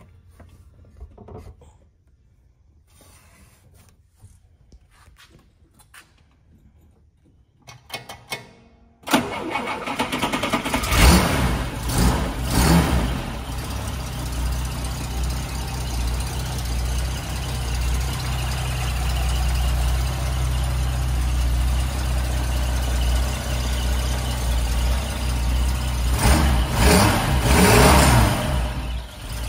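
A 1951 Mercedes-Benz 220's inline six-cylinder engine starting from cold: after a quiet stretch it catches suddenly about nine seconds in, is revved a couple of times, then settles into a steady idle, with a few more revs near the end.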